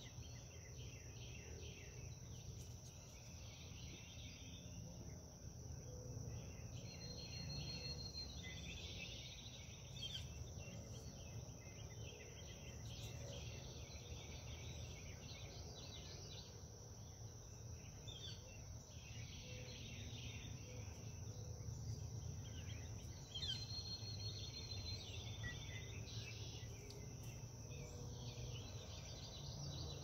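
Quiet outdoor ambience: a steady, high insect drone with birds chirping now and then and two short trills, over a faint low rumble.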